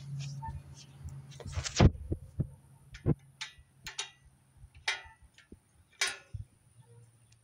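Ratcheting flexhead combination wrench clicking and knocking on a rusty bicycle nut: a heavier thump about two seconds in, then single sharp metal clicks about once a second as the handle is swung back and forth, the nut not giving.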